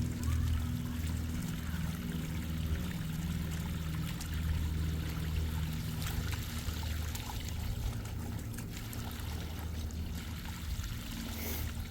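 Water from a garden hose pouring steadily into an inflatable kiddie pool as it fills.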